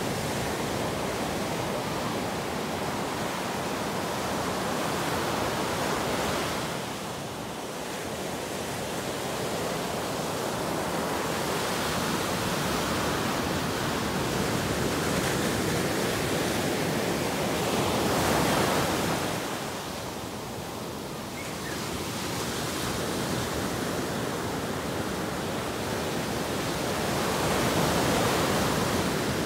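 Ocean surf breaking and washing up a sandy beach: a continuous rush that swells and eases with each wave, loudest about six, eighteen and twenty-eight seconds in.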